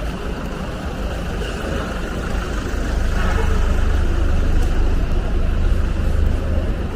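Road traffic: a motor vehicle's engine and tyres growing louder about halfway through as it passes close, then easing near the end, over a steady low rumble of street noise.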